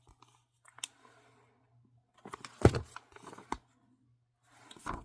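A comic book being handled and turned over by hand: soft rustling with a few sharp clicks, the loudest about two and a half seconds in.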